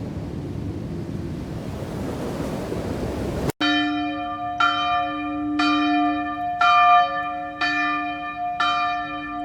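Surf and wind rushing, cut off abruptly about three and a half seconds in. Then a church bell tolls about once a second, each strike ringing on with several steady tones.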